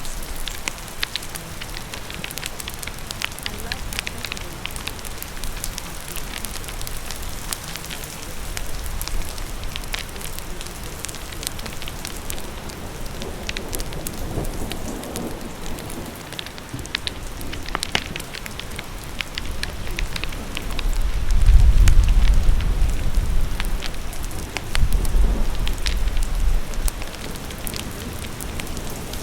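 Steady rain with a crackling fire over it, sharp pops scattered throughout. Two deep low rumbles swell up about two-thirds of the way in, the first the louder.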